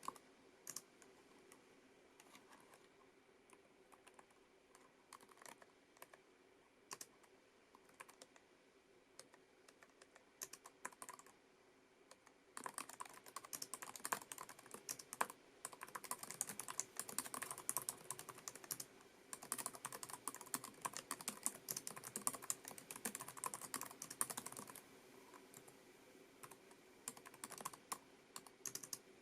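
Typing on a Lenovo ThinkPad TrackPoint Keyboard II, its low-profile scissor-switch keys clicking softly. Scattered, occasional keystrokes at first, then steady fast typing from a little under halfway in, easing off near the end.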